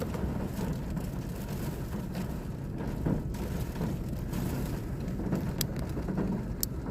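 Steady low rumble of storm wind and rain around a car, with two sharp clicks near the end.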